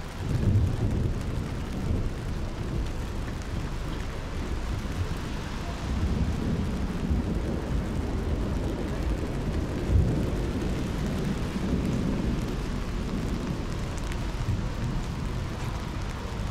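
Rain falling on a city street, with a low rumble under it that swells about half a second in and peaks again around ten seconds.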